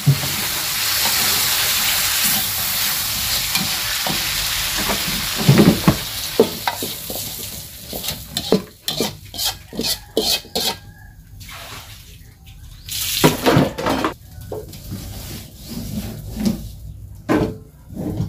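Food sizzling in hot oil in a wok while a metal spatula stirs it. After about seven seconds the sizzle fades, leaving sharp clinks and scrapes of the spatula against the wok as the food is scraped out into a bowl.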